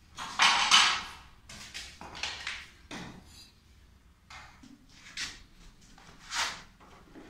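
A hand saw cutting through a grey PVC pipe: a series of short scraping strokes, unevenly spaced, the loudest about half a second in.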